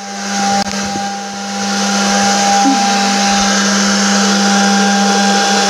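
Bubble machine running: its small motor and fan give a steady whir with a constant hum.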